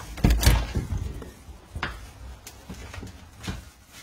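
A door being opened and handled, with a heavy thump and clatter about half a second in, followed by a few scattered footfalls and knocks going down stairs.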